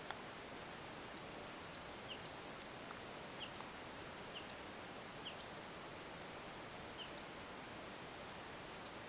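Steady outdoor hiss with a bird's short, high chirps, about five of them spread over several seconds. A single sharp click comes just at the start.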